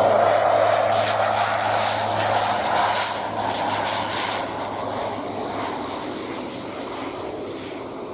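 Pilatus PC-12 single-engine turboprop passing by, its engine and propeller drone with a steady low hum, loud at first and fading steadily as the aircraft moves away.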